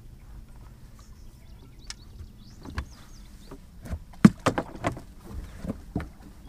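A run of sharp knocks and clunks on a fishing boat while a big flathead catfish is brought alongside to be landed, scattered at first and coming thick and fast over the last couple of seconds, over a low steady hum.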